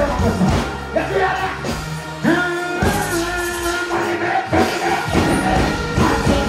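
Live dancehall music over a concert sound system, with a performer's voice over the beat and a long held note a little past two seconds in.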